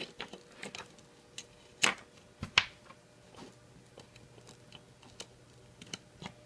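A scatter of small clicks and knocks as a USB mouse cable is handled and its plug pushed into the Beaglebone Black's USB host port, with two louder clicks about two and two and a half seconds in.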